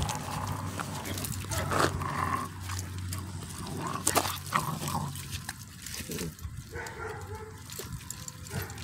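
Young dogs tugging and tearing at a raw whole chicken, with short whines and yelps amid scuffling on gravel.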